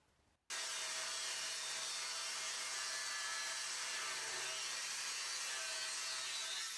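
Power tool steadily cutting or grinding metal: an even, hissing grind with a faint hum underneath. It starts abruptly about half a second in.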